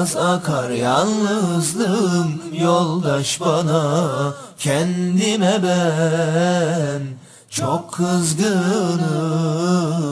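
A solo voice singing slow, long-held, ornamented notes with a wavering vibrato and no other instrument audible, breaking off briefly twice.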